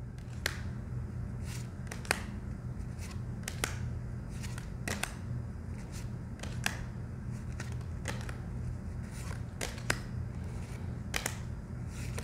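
Oracle cards being flipped through by hand one at a time, each card giving a short crisp tap as it is slid off the stack and laid down. The taps come irregularly, roughly one or two a second, over a faint steady low hum.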